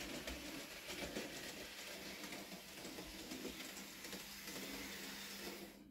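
Bachmann Rheneas model locomotive running on model railway track, pulling a short train of wagons: a steady small-motor whirr with a quick patter of wheel clicks. It cuts off just before the end.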